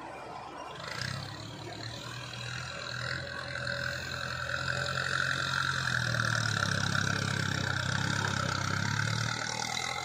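XCMG hydraulic excavator's diesel engine working under load as the boom lifts and swings a bucket of sand, picking up about a second in and growing louder, with a high steady hydraulic whine over it through most of the stretch. It eases off near the end.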